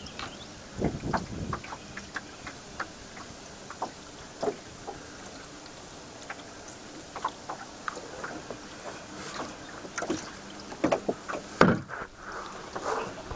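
Canoe moving slowly under an electric trolling motor: water lapping and knocking at the hull, with scattered sharp clicks and thumps over a faint steady hum. The knocks come louder and closer together near the end.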